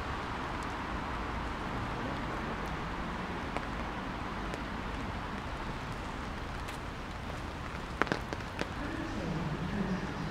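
Steady rain falling, an even hiss with scattered sharp ticks, the sharpest about eight seconds in.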